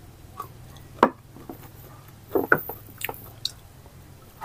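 Wet chewing and lip smacks of a person eating a mouthful of rice by hand, with a few short, sharp smacks, the loudest about a second in and around two and a half seconds in.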